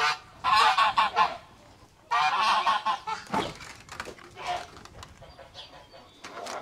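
Domestic geese honking: two loud runs of honks in the first three seconds, then scattered quieter calls.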